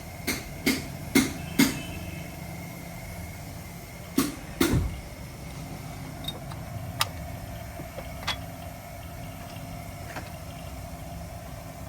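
Sharp knocks from work on a car: four in quick succession, then two more about three seconds later and a few fainter ones after, over a steady mechanical hum.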